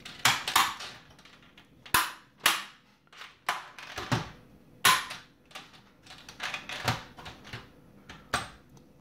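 Sharp plastic clicks and knocks, about a dozen at irregular intervals, as the instrument cluster's plastic faceplate and housing are handled and fitted back together.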